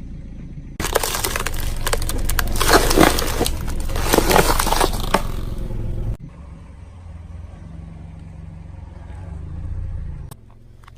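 A car's tyre rolling over and crushing crunchy objects: a dense stretch of cracking and crackling over the engine's low running, which stops abruptly about six seconds in. The engine then runs on its own.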